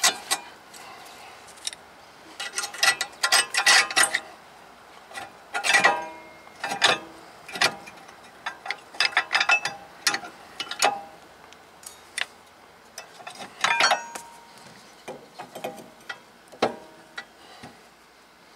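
Metal parts of a 2017 Honda Civic's rear disc brake caliper clicking and clinking as it is worked back into place over the pads and bracket by hand. The clicks come in irregular bursts, some with a short metallic ring.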